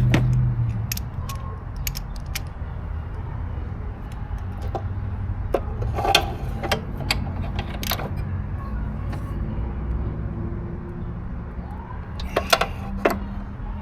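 Scattered metallic clicks and clinks of a hand wrench working the bolts of a mower's belt guide, over a steady low rumble.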